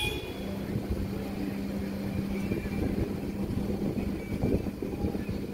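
Wind buffeting the microphone, with a steady low hum that starts just after the beginning and holds.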